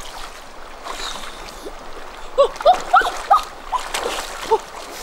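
River water splashing and churning as a person wades through it. About halfway in comes a quick run of loud, hollow plops, a few each second.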